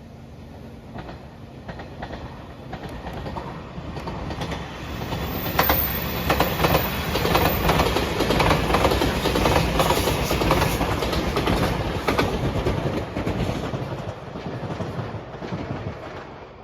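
A five-car JR Shikoku 8000-series electric limited express train passing close by, its wheels clicking over the rail joints. It grows louder from about four seconds in, is loudest through the middle, and fades away toward the end.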